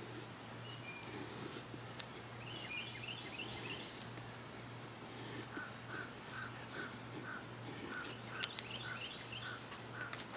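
A Ka-Bar kukri machete shaving curls off a wooden stick in soft scraping strokes, with birds calling in the background: a run of short, evenly spaced notes, about three a second, from about halfway in, and a few higher chirps.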